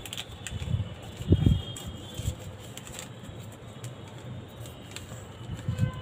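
Hands folding a sheet of paper and pressing the creases against a wooden tabletop: a few soft, low thumps and handling sounds, the loudest about a second and a half in.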